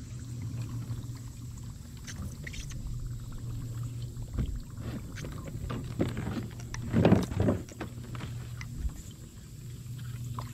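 Handling noise from fishing in a kayak: scattered clicks and ticks of rod and reel over a steady low hum, with a louder clatter about seven seconds in.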